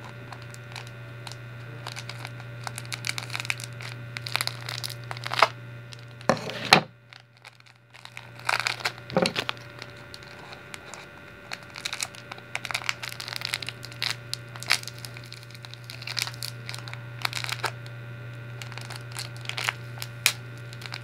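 A glitter pack crinkling and rustling in irregular crackles as it is handled and cut at with blunt scissors, with a short pause about seven seconds in. A steady low hum runs underneath.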